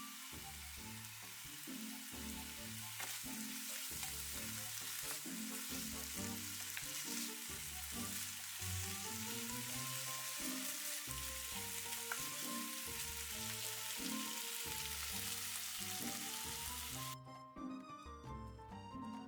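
Liquid-batter pizza dough frying in a pan, a steady sizzle that cuts off suddenly near the end, over background music.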